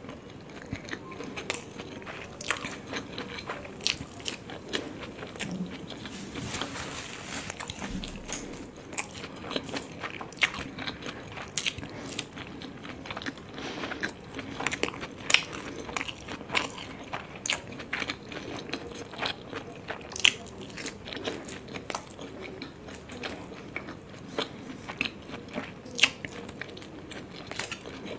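Close-miked chewing of soft steamed momos (dumplings), with many sharp, irregular wet clicks and smacks of the mouth.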